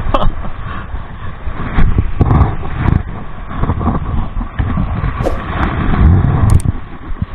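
Wind buffeting the microphone: a loud, uneven rumbling that rises and falls in gusts. A few sharp clicks sound in the second half.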